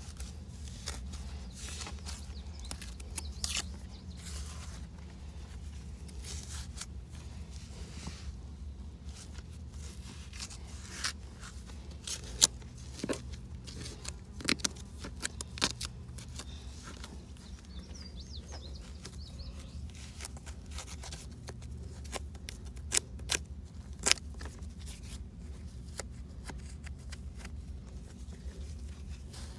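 Gloved hand scraping and picking at packed dirt and roots, soil crumbling away in irregular scratches and sharp clicks, the loudest a few crisp snaps about twelve seconds in and again near twenty-four seconds, over a low steady hum.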